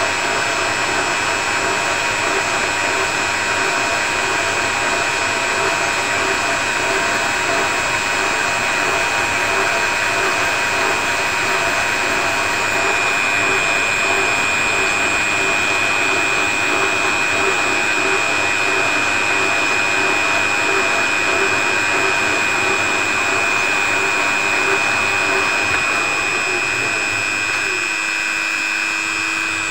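A high-speed rotary grinder with a small grinding stone runs with a steady high whine and a hiss of grinding against a WSK 125 gearbox main shaft spinning in a lathe under power feed. The stone is just beginning to take metal off the worn journal, throwing sparks. Near the end the deeper part of the sound drops away.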